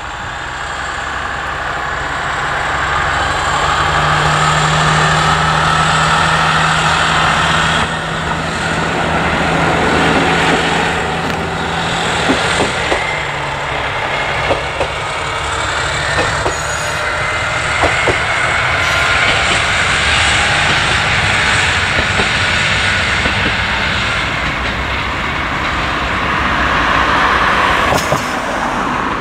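Single-car diesel railcar running along the line, its engine droning steadily under power and strongest in the first half. A scatter of sharp clicks comes from the running train in the middle stretch.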